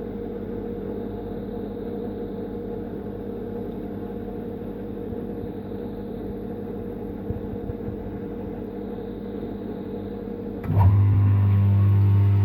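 Miele dishwasher running a steady, humming pump while it empties its water. About ten and a half seconds in, a louder, deeper pump hum starts suddenly.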